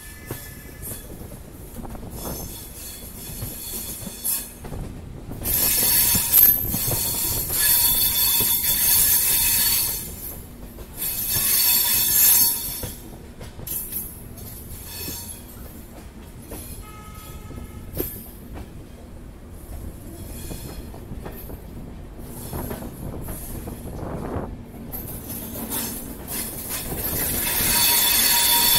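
Passenger train running on the rails, with bouts of high-pitched metallic wheel squeal over a steady rumble. The squeal is loudest from about five to ten seconds in, again briefly around twelve seconds, and near the end.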